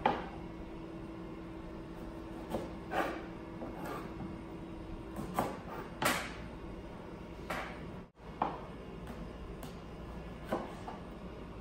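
Kitchen knife slicing an eggplant on a cutting board: separate knocks as the blade hits the board, irregularly spaced, about one every second or two.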